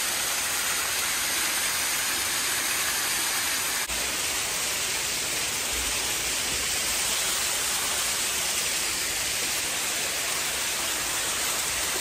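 Waterfall rushing: a steady, even noise of falling water, with a brief tick about four seconds in.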